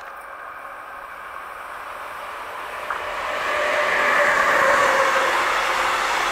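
A Siemens Vectron electric locomotive hauling a container freight train approaches and passes close by. Its wheel and rolling noise swells over about four seconds to a steady loud level as the locomotive goes past and the loaded container wagons follow, with a faint steady whine while it is loudest.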